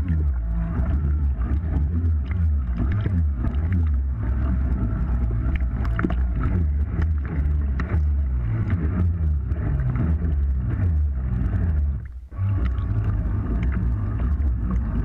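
Water sloshing and lapping around a waterproof action camera held at the surface, heard as a muffled, wavering low rumble. It briefly drops out a little after twelve seconds in.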